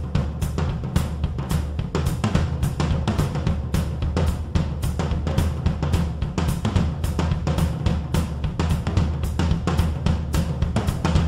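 Background rock music with a fast, steady drum beat.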